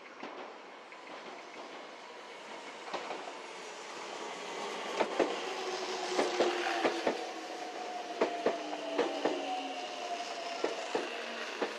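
Meitetsu 3300 series electric train pulling in alongside the platform: its wheels clack over the rail joints in sharp, irregular strikes that start about five seconds in, over a rising rumble. Beneath them a whine falls slowly in pitch as the train slows.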